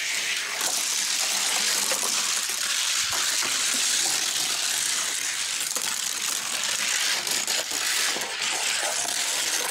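Two Hot Wheels die-cast cars rolling at speed down a gravity race track: a steady, loud hiss of small wheels on the track, with scattered clicks.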